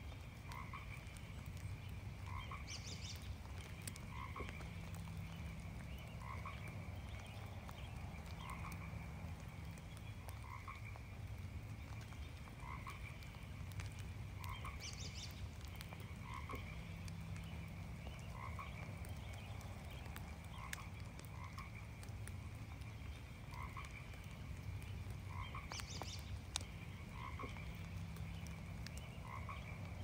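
Frogs croaking, one short call about every one and a half to two seconds, over and over, with a few brief high chirps mixed in.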